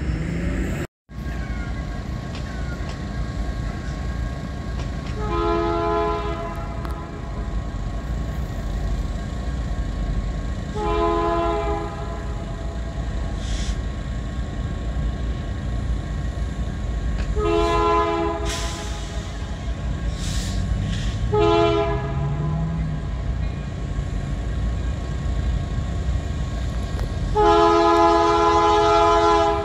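Union Pacific diesel locomotive sounding its multi-note air horn in five blasts as it approaches a grade crossing, the last blast the longest and loudest, over a low engine rumble.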